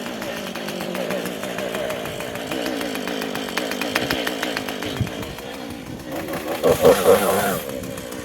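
Two-stroke gas chainsaw running just after being pull-started, steady at a low speed, with a short rev up about seven seconds in.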